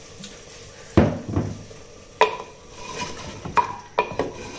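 Wooden spoon stirring in a clay cooking pot (handi), knocking against the pot's side: a series of sharp, irregularly spaced knocks, several leaving a brief ring.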